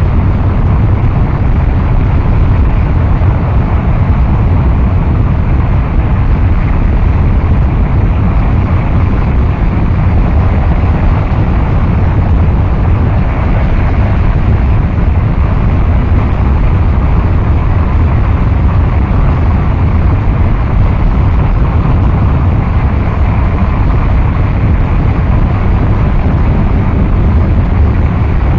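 Harsh noise music: a loud, dense wall of noise, heaviest in the low end, unchanging, with no beat or melody.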